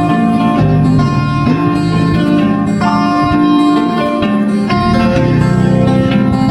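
Background music led by plucked string instruments, with sustained notes changing every second or so.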